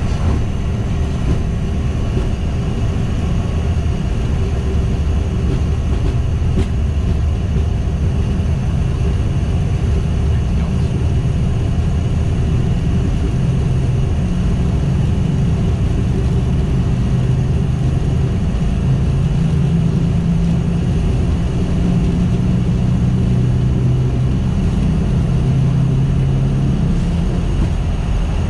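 Boeing 737-800 take-off roll heard from the cockpit: its CFM56-7B turbofans at take-off thrust and the gear rumbling on the runway, a loud steady roar with a low hum that grows stronger past the middle.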